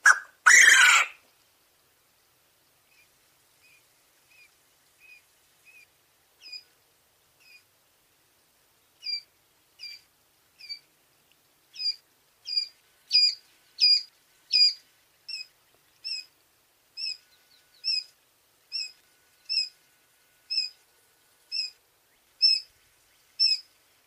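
A Coturnix quail cock gives one loud crow in the first second. A Coturnix quail chick then peeps repeatedly: short, high, falling peeps a little more than one a second, faint at first and louder from about nine seconds in.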